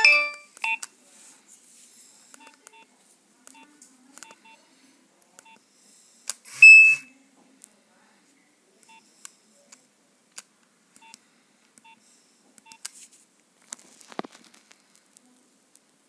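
Nokia 2600 keypad beeps as its buttons are pressed to scroll a menu: a string of short identical beeps, mostly half a second to a second apart. A ringtone cuts off right at the start, a brief, much louder tone sounds about six and a half seconds in, and a few fainter key clicks and beeps follow near the end.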